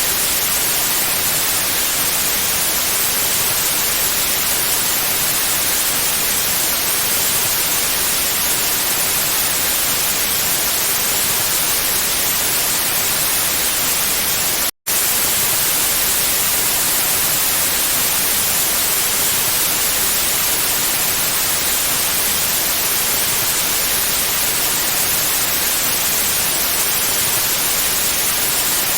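Steady white noise, an even hiss strongest in the high frequencies. About halfway through it cuts out for a split second and then resumes.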